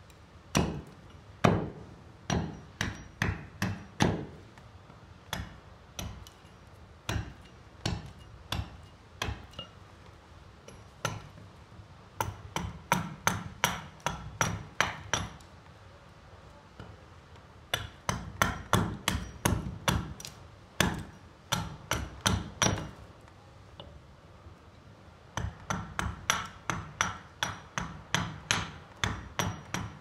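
Forged Sibin hatchet chopping and shaving a bog oak stick stood on a wooden chopping block: sharp chops about two to three a second, in runs of several seconds with short pauses between.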